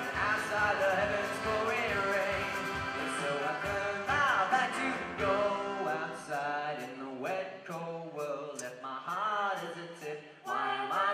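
A live band playing a song: singing over accordion, acoustic guitar, keyboard, upright bass and drums. The bass end drops away about seven seconds in.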